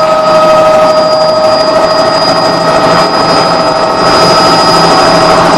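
Helicopter in flight: turbine engine and rotor running steadily, a loud constant noise with a steady high whine over it.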